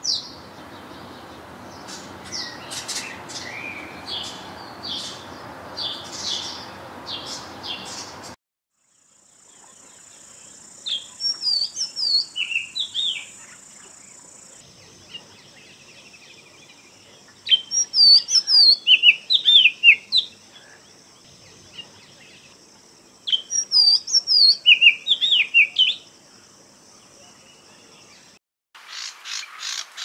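House sparrow chirping for about the first eight seconds. Then an Oriental magpie-robin sings clear, gliding whistled phrases in three spells of two to three seconds each. Near the end, a jungle babbler starts a rapid run of repeated notes.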